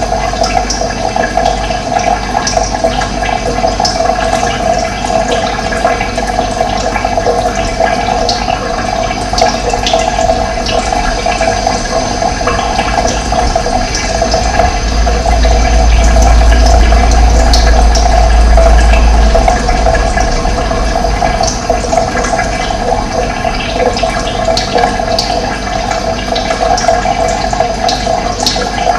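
Steady rushing of running water. A deep low rumble swells in for a few seconds around the middle and then fades.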